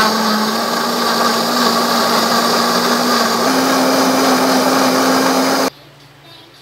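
Countertop blender running at full speed, liquidising kale leaves, cucumber and lemon in water: a steady motor whine over the churning of the liquid, the hum stepping up slightly in pitch a little past halfway. It cuts off suddenly near the end.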